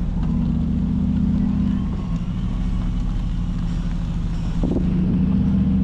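Engine running steadily at constant speed, a low drone.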